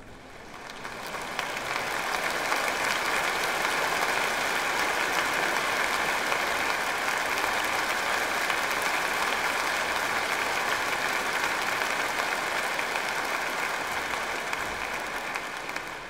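Audience applause, a dense patter of many hands clapping that swells in over the first couple of seconds, holds steady, and fades out near the end.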